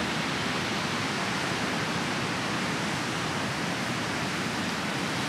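Ocean surf on a beach, heard as a steady, even rush of noise.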